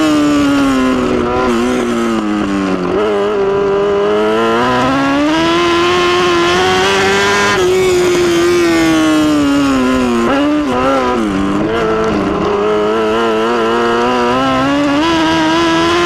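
1000cc dirt-track midget race car's engine heard onboard at racing speed, its revs dropping as it backs off into the turns and climbing again down the straights, twice.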